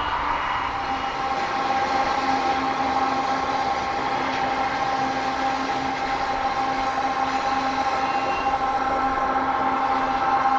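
Freight train with diesel locomotives running: a steady rumble under several held whining tones.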